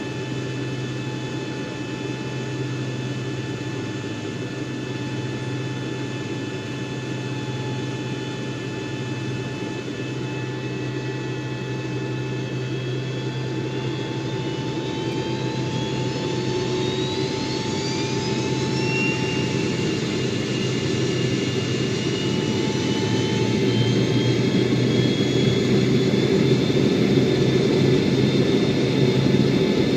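Passenger jet's engines idling with a steady whine, then spooling up as the throttle is increased: the whine rises in pitch from about thirteen seconds in, and the rumble grows louder through the last third.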